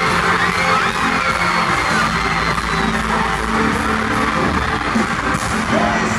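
Loud amplified pop music over a stadium PA, with a large crowd of fans screaming over it.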